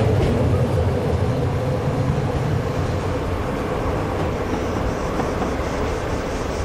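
Renfe electric train running past a station platform: a steady rumble with a held hum that slowly eases off.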